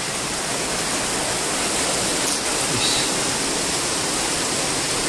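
Heavy rain pouring down, a steady rushing hiss that builds a little over the first couple of seconds.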